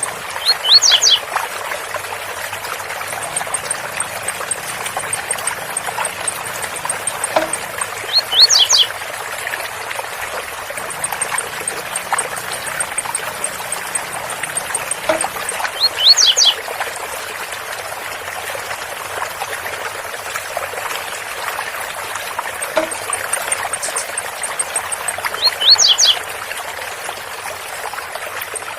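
Blue-black grassquit (tiziu) singing its short 'zel zel' song phrase four times, about every eight seconds, over the steady rush of a waterfall. A faint, rapid, high ticking comes and goes between the phrases.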